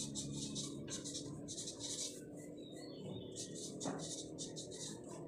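Marker pen writing on a paper chart: a run of short, scratchy strokes, several a second.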